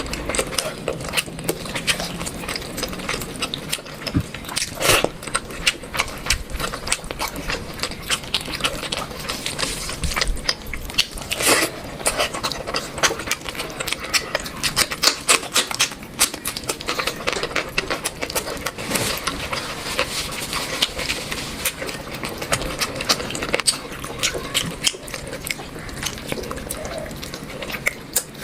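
Close-miked eating: steady chewing, lip-smacking and wet mouth noises from someone eating curry and rice, made of many quick clicks and smacks with a few louder ones.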